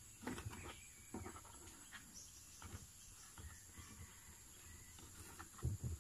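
Faint rustles and small clicks of hands handling fishing tackle, baiting a hook with a worm.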